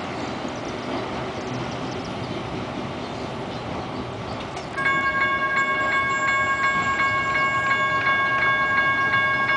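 A freight train rumbles away down the track. About five seconds in, a railroad grade-crossing bell starts ringing rapid, even dings about twice a second, louder than the train, as the crossing gates lift.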